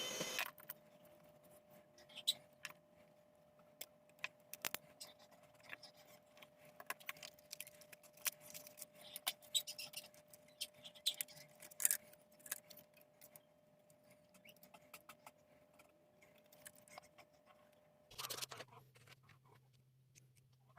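Faint, irregular small clicks and taps, like small hard objects being handled, over a faint steady tone. About eighteen seconds in, a brief louder rustle is followed by a low steady hum.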